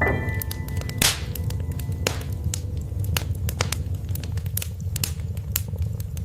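Wood fire crackling: many sharp irregular pops and snaps over a steady low rumble of burning logs. A single soft piano note dies away at the start.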